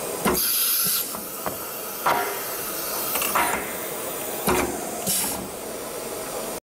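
Compressed air blowing from an automatic tool change (ATC) spindle's pneumatic tool release when its button is pressed: a short hiss about a third of a second in and another about five seconds in, as the tool holder is unclamped and clamped. Several sharp clicks fall between the two hisses.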